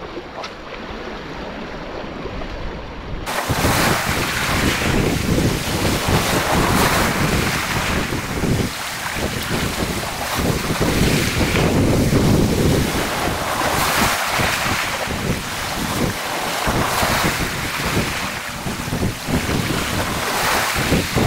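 Wind buffeting the microphone over waves washing and breaking around reef rocks, rising and falling in gusts; it gets much louder about three seconds in.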